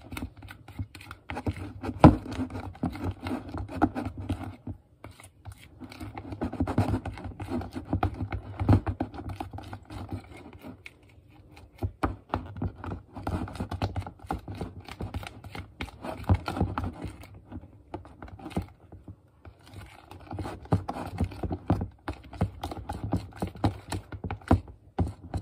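A spoon stirring slime with shaving cream mixed in, in a plastic bowl: runs of sticky scraping and clicking in bouts, with a few short pauses and one sharp louder click about two seconds in.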